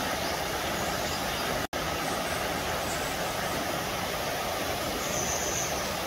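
Steady rushing of a shallow rocky mountain stream, broken by a momentary dropout in the sound about two seconds in.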